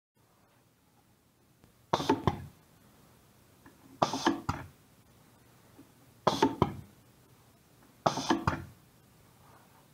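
Pneumatic trainer circuit worked by hand: four short bursts about two seconds apart, each a few sharp clacks from the push-button valve and cylinder with a quick rush of air.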